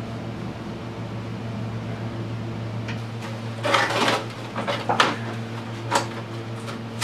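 Hard plastic ATV fenders being handled and shifted on a concrete floor, giving a cluster of knocks and scrapes past the middle and two more single knocks near the end, over a steady low hum.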